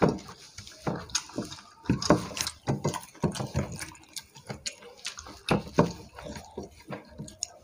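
Irregular wet squelches and smacks of hands mixing rice with chicken curry, along with close chewing and lip smacks.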